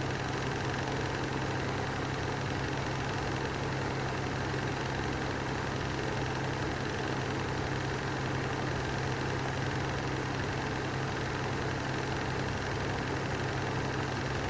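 Lanson style 3 exhaust fan running steadily: a constant low hum under an even whir, from a fan whose bearings are bad.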